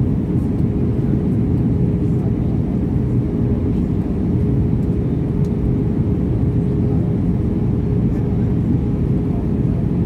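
Steady roar of an Airbus A320-214's CFM56 engines and the airflow, heard inside the passenger cabin, with a constant steady hum running through it.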